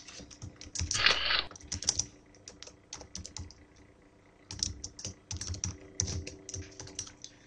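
Typing on a computer keyboard: quick, uneven runs of keystrokes with a pause about halfway through. A short rushing noise about a second in is the loudest moment.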